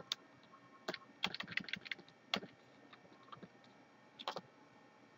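Typing on a computer keyboard: scattered keystroke clicks, with a quick run of keys between one and two seconds in and single taps around it.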